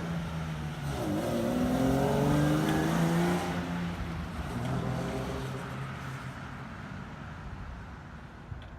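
Drift car's engine revving up: the pitch dips briefly about a second in, then climbs steadily as the car accelerates, and the sound fades out as the car moves away.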